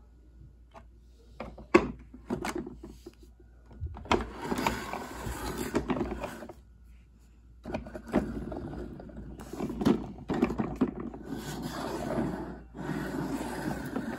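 Plastic toy garbage truck pushed by hand across a wooden floor, its wheels rolling and scraping in three runs of a few seconds each, after a few clicks and a knock in the first two seconds.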